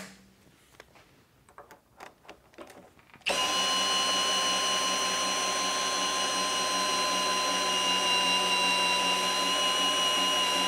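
A few light clinks, then about three seconds in a cordless drill starts up and runs with a steady whine. It is turning the milling machine's knee elevating screw to raise the knee and table.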